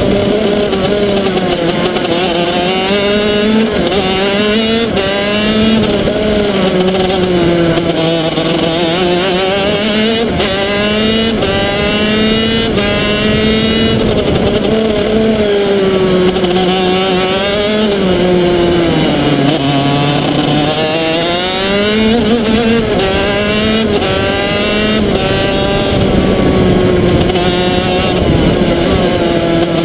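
Single-cylinder two-stroke engine of a 125cc shifter kart at racing speed, heard from on board. It revs up and drops back again and again as the kart accelerates, changes gear and brakes into the corners.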